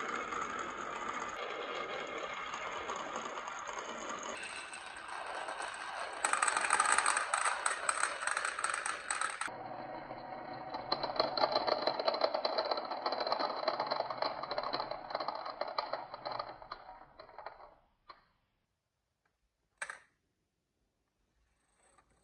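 Marbles rolling and clattering down wooden marble-run tracks: a dense, continuous rattle of many small clicks that changes character abruptly several times and dies away about 18 seconds in. A single sharp click follows about two seconds later.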